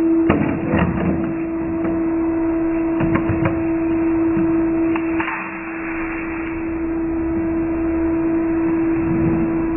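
Steady electric hum of a plastic-flake color sorting machine running, with a few sharp knocks of plastic crates being handled in the first few seconds and a short rush of noise about five seconds in.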